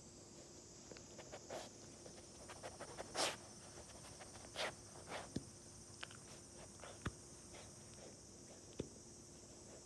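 English Springer Spaniel puppy hiccuping: four short breathy hics at uneven gaps, the loudest about three seconds in, with a few faint clicks after them.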